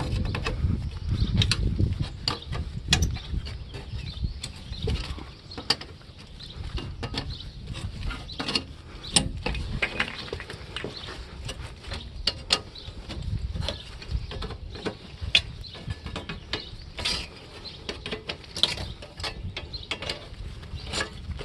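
Metal from an air conditioner being rolled up and twisted by hand: an irregular run of sharp crinkling clicks and metal creaks, heavier and with more low rumble in the first few seconds.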